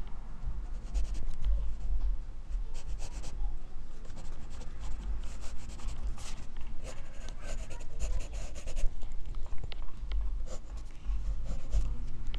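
Graphite pencil scratching on drawing paper in runs of quick, short shading strokes, over a low rumble.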